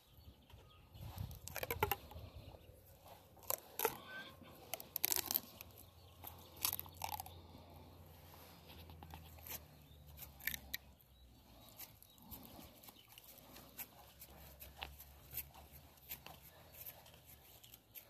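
Scattered crackles, clicks and rustles of close-up handling, with chickens clucking now and then in the background.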